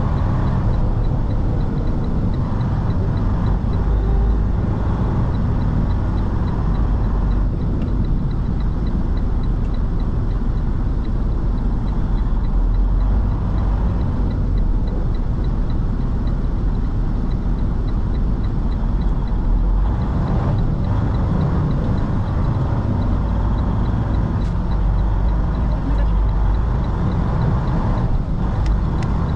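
Semi-truck's diesel engine and road noise heard from inside the cab while driving, a steady low rumble.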